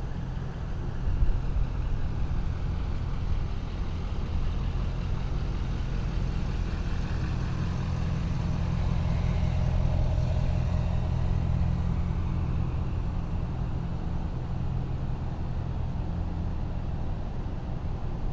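Street traffic: a motor vehicle's engine running with a steady low hum, swelling a little around the middle.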